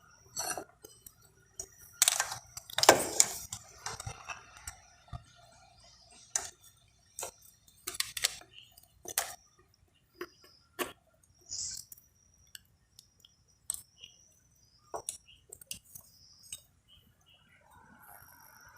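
Scattered clicks and metallic clinks of hand tools and small metal engine parts being handled while a motorcycle inlet manifold is fitted, loudest two to three and a half seconds in.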